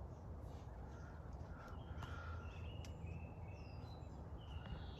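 Small birds singing and calling faintly, in short whistled notes scattered throughout, over a steady low rumble of wind on the microphone, with a few faint clicks.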